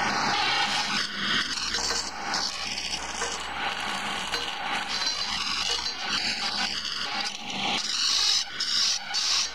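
A skew chisel cutting a long wooden handle spinning on a wood lathe: a continuous scraping of the blade on the turning wood, broken into shorter strokes near the end.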